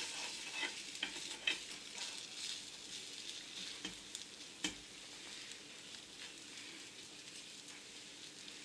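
Egg frying in a pan with a faint steady sizzle, and a few light clicks and scrapes as the slice of bread holding it is pressed and shifted in the pan.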